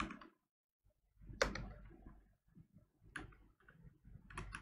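A few scattered computer keyboard keystrokes, faint, with pauses between them: a sharper one about a second and a half in, another a little after three seconds, and a quick couple near the end.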